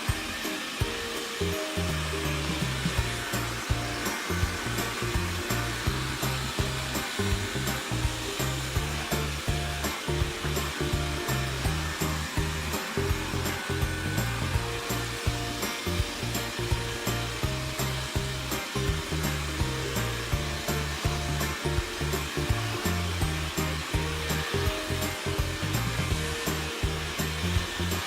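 Background music with a steady beat of about two clicks a second and a stepping bass line, over the steady whirring hiss of a Xiaomi Mi Robot vacuum cleaner running.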